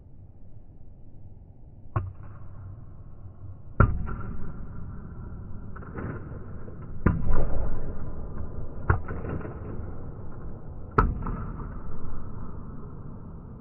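Table tennis ball being flipped back with a backhand flick and bouncing on the table: a series of sharp clicks of ball on paddle and tabletop, about two seconds apart, each with a short echo.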